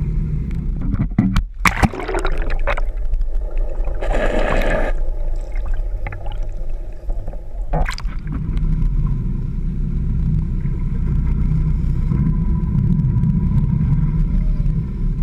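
Sport-fishing boat's engine running with water sloshing and splashing against the hull close to the microphone; a burst of splashing about four seconds in and a few sharp knocks around two and eight seconds.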